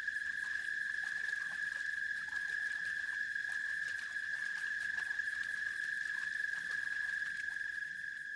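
Insects, crickets by the sound, trilling without a break on one high, steady pitch, with faint rapid ticking underneath.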